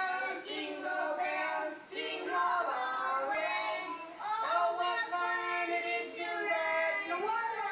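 Children and women singing together, a group of voices holding long notes that bend from one pitch to the next.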